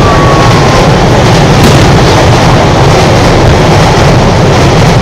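Fireworks display heard very loud: a continuous deep rumble of shell bursts and their echoes, with one sharp bang about a second and a half in and a faint falling whistle near the start.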